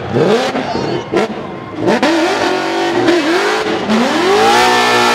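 Ford Mustang and Chevrolet Camaro drift cars' engines revving hard in three rising sweeps, then held at high revs, with spinning tyres hissing in clouds of smoke as the cars pull away.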